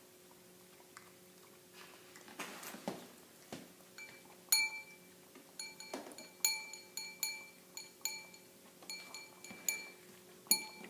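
A Yorkshire terrier feeding from a bowl: the bowl gives short ringing clinks, all at the same pitch, about one every half second, starting a few seconds in.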